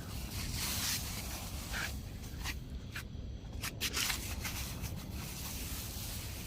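Faint rustling and handling noise with a few short scrapes and clicks about halfway through, over a steady background hiss.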